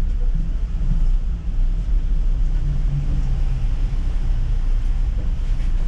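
City bus on the move, a steady low rumble of engine and road noise heard from inside the bus.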